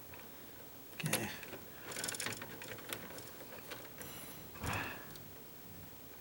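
Wire strippers clicking and snipping as insulation is stripped from the ends of light-switch wires, in scattered short metallic clicks with a brief rustle near the end.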